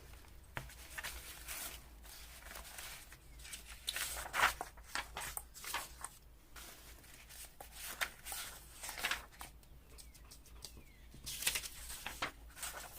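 Sheets of paper rustling and shuffling as they are handled and leafed through, in short irregular bursts.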